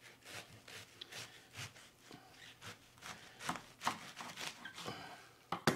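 Chef's knife slicing through a head of cabbage on a bamboo cutting board: a run of irregular cutting strokes, with one sharp knock near the end.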